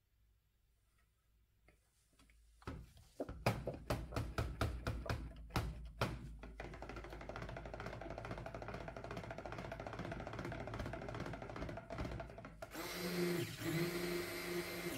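After a couple of seconds of near silence, background music with a knocking percussive beat comes in. Near the end, a stick blender's motor runs in a short burst, pulse-mixing cold-process soap batter toward emulsion.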